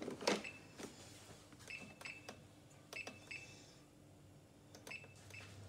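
Thermomix control-panel buttons being pressed to set the kneading mode: half a dozen short clicks, each with a brief high electronic beep, spaced irregularly.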